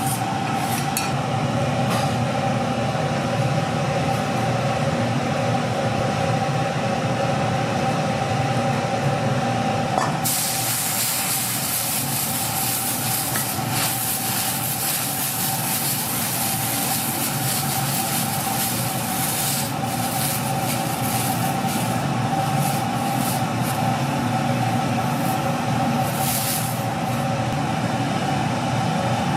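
Steady hum and hiss of a fried-rice cooking station running, with a brighter frying hiss setting in about ten seconds in.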